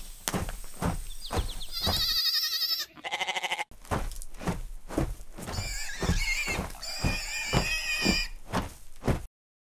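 Cartoon animal calls over a steady run of thumps, about three a second, cutting off suddenly near the end.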